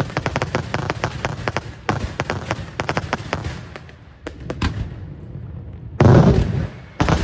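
Daytime aerial fireworks: a rapid volley of sharp cracks from many small shells bursting, thinning out after about three seconds. Then two heavy booms, about six and seven seconds in, the first the loudest.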